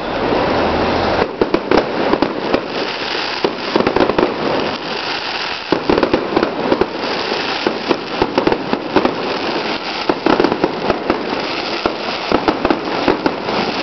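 Display fireworks going off continuously: a dense crackle with many sharp bangs in quick succession, the bangs starting about a second in.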